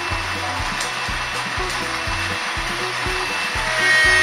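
H0-scale model of a DB V 200 diesel locomotive running with a train of freight wagons, making a steady whirring, hissing running noise. The sound gets louder near the end, with whining tones coming in as the locomotive nears.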